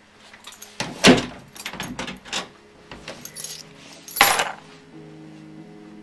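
Keys rattling in a door lock and the door handle clicking as the door opens, then a key ring set down on a table with a loud jangle about four seconds in. Soft music comes in near the end.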